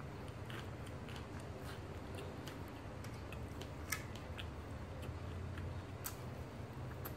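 Roti prata being bitten and chewed close to the microphone: a run of small crisp crackles and clicks, with one sharper click about four seconds in, over a steady low hum.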